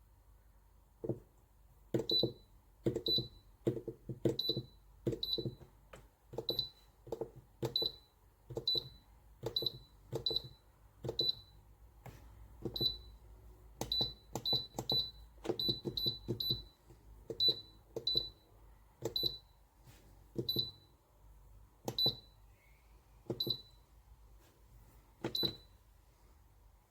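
Buttons on the Alpicool C12 car fridge's digital control panel being pressed over and over, about two dozen times at roughly one press a second. Each press gives a soft click followed by a short high beep.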